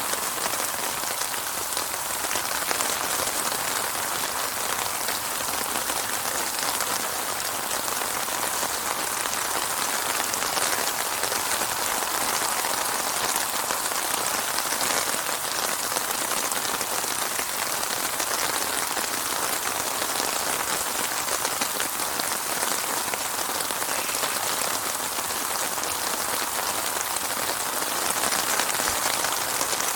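Steady, heavy rainfall with dense pattering of drops on a surface, without thunder.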